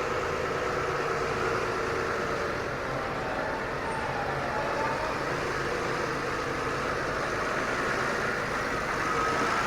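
Case 175 Puma tractor engine running steadily at a low, even speed, with a faint whine over it.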